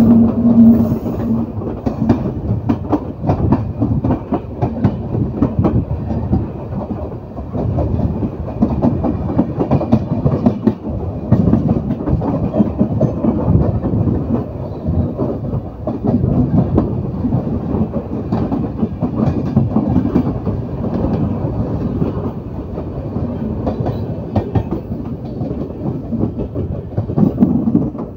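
Nauchandi Express passenger train running at speed, heard from outside the side of a coach: a steady loud rumble with wheels clattering over the rails in many short clicks.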